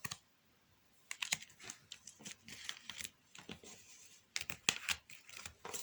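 Playing cards being handled and laid on a table: a faint run of irregular clicks and soft snaps, starting about a second in.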